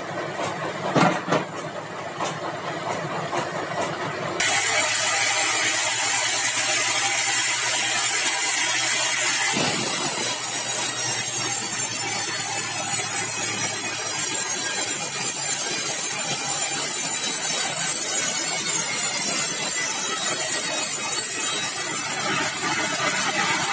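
Sawmill saw cutting through a large log of dry, hard bengkirai (balau) wood: a loud, steady noise that sets in suddenly about four seconds in. Before that comes quieter machine running with a few knocks.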